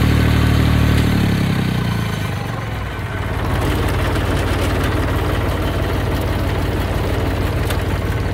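Massey 20 tractor engine running at higher revs, dropping about a second and a half in and settling into a steady, lower-speed run.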